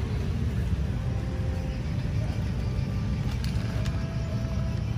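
A steady low rumble in the outdoor background.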